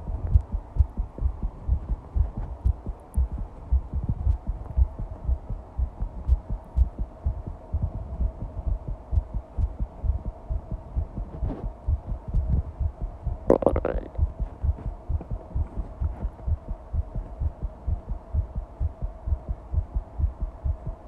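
Fast heartbeat: a rapid, even run of low thumps, with a faint steady hum behind it. A brief noise cuts in about two-thirds of the way through.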